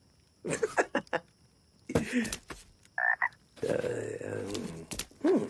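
Cartoon frog croaking in a string of short separate calls, mixed with brief vocal grunts and box knocks.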